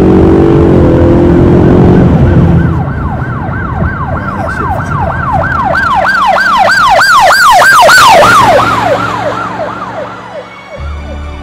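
The Ford Mustang's 5.0-litre V8 revs hard for the first couple of seconds. Then a siren in a fast yelping pattern, about three sweeps a second, takes over: it grows louder, then drops in pitch and fades.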